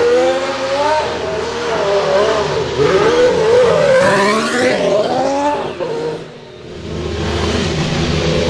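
Ferrari Formula 1 car's turbo V6 engine revving up and down in quick swings as the car spins its rear wheels, with tyre squeal. About six seconds in the revs drop away, and the engine settles into a steadier, lower note.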